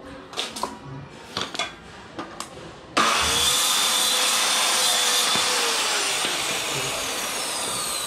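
A few light knocks as a wooden plank is handled, then about three seconds in a handheld electric circular saw starts and cuts through the plank. Near the end the trigger is released and the motor's whine falls as the blade spins down.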